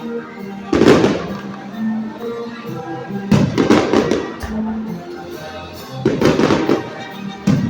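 Fireworks going off in four loud booming bursts, each trailing off briefly, about every two to three seconds, with music playing underneath.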